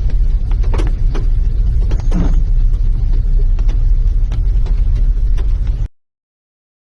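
Strong storm wind buffeting the microphone: a loud, steady low rumble with scattered clicks and a few brief higher-pitched sounds over it, cutting off abruptly about six seconds in.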